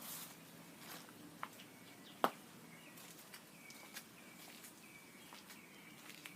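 Faint outdoor ambience with scattered sharp clicks, the loudest a little past two seconds in, and a bird chirping in short, evenly spaced notes through the second half.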